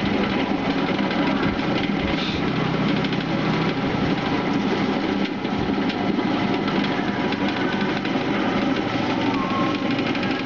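Electric oil spinner running steadily, its motor driving the stainless basket at speed to fling frying oil out of freshly fried food by centrifugal force.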